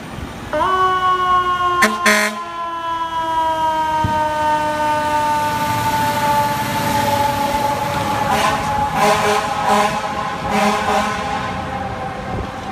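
Fire engine's mechanical siren winding up about half a second in, then coasting slowly down in pitch, with air horn blasts: a sharp one near two seconds and a run of short repeated blasts in the second half.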